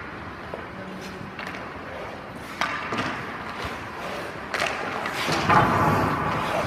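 Ice hockey goalie skates scraping and carving on the ice, with several sharp knocks spread through; a longer, louder scrape near the end.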